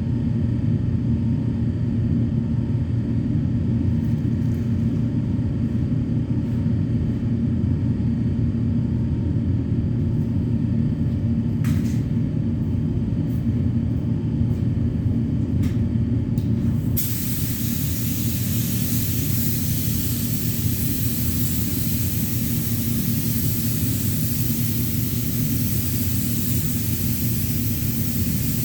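Steady low machine hum with a few light clicks, then, about two-thirds of the way in, a spray gun opens up with a steady hiss of compressed air, spraying primer.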